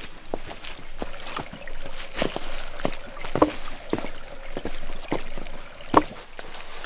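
A shallow stream trickling over stones, with footsteps on dry leaves, rocks and a log as people step across it; two sharper steps stand out, about three and a half and six seconds in.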